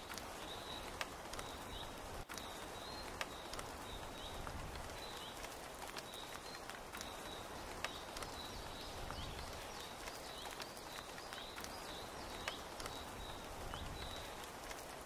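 Steady rain with scattered sharp drips tapping, over a low rumble. Short high chirps from a bird or frog repeat every second or so throughout.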